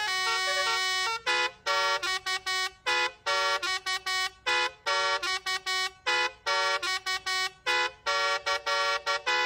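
Bus telolet horn of the Basuri type playing a melody: a held multi-note phrase, then a quick run of short, choppy blasts changing pitch.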